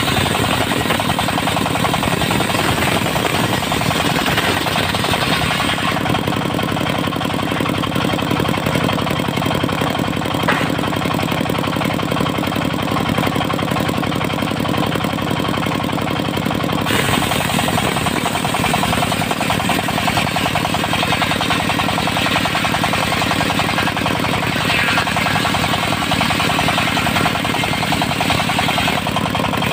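Diesel engine of a portable circular sawmill running steadily under a knocking, jackhammer-like clatter, with the saw working dry teak. The higher noise changes about six seconds in and again about seventeen seconds in.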